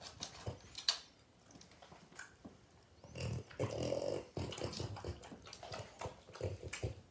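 French bulldogs eating strands of cooked spaghetti from a hand: a few sharp mouth clicks in the first second, then a busy, irregular run of chewing and lip-smacking from about three seconds in.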